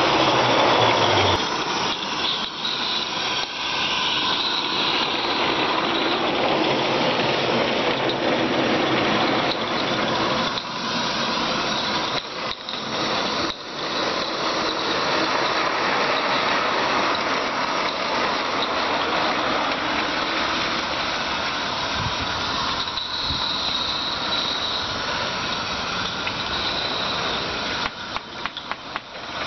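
16mm-scale live steam locomotive running along the line, giving a steady hiss of steam and exhaust.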